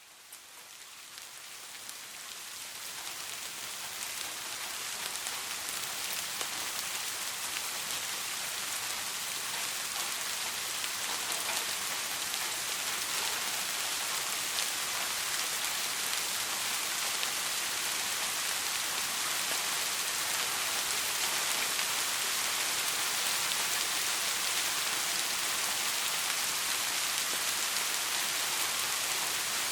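Steady rainfall pattering on a surface, fading in over the first several seconds and then holding steady.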